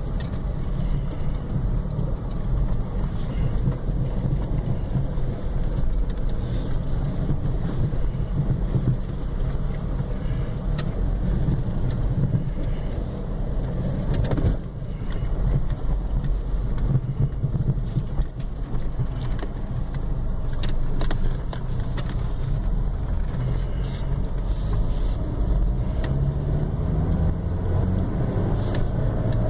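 Car engine and tyre noise heard from inside the cabin while driving over a wet, muddy dirt road, a steady low rumble with scattered light knocks. Near the end the engine note rises as the car speeds up.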